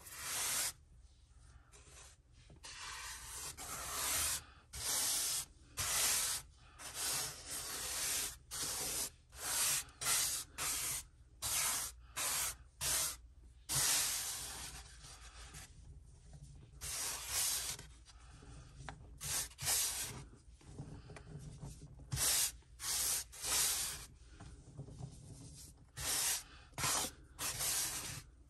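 Hands rubbing and sweeping fine Holi powder across a flat board, in a long irregular run of short hissing, rasping strokes, some quick and some about a second long.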